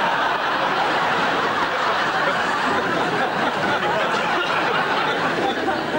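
Studio audience laughing.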